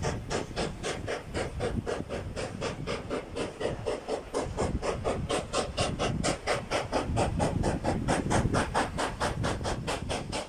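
Steam locomotive working a train, its exhaust chuffing in rapid, even beats, about four to five a second.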